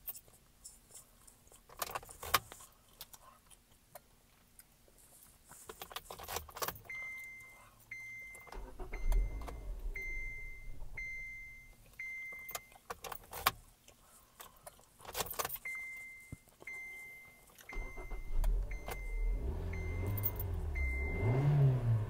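Keys jangling and a few clicks, then the 2015 Kia Forte's dashboard warning chime beeping about once a second in two runs of six. Near the end the car's four-cylinder engine starts and revs up, its pitch rising steeply.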